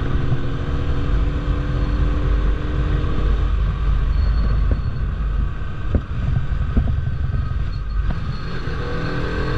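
Bajaj Pulsar RS200 single-cylinder engine running while the motorcycle rides along, under heavy wind rumble on the microphone. The engine's steady note fades away about three and a half seconds in.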